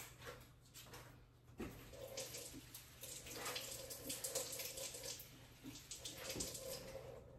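Pan of gravy simmering on the stove: faint, irregular bubbling and popping.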